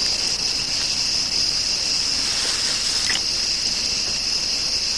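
A steady chorus of crickets, an unbroken high-pitched trill.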